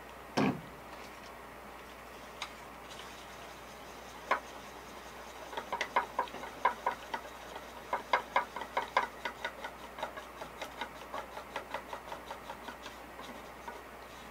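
A stir stick clicking against the side of a small paint cup as black paint is mixed with thinner, in quick light ticks about three a second. There are a few single clicks before the steady ticking starts about five seconds in.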